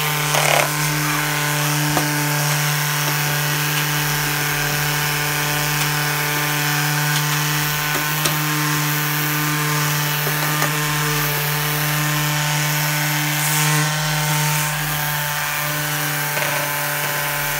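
Cordless electric sander running steadily, its pad rubbing along the cut plywood edges to smooth them.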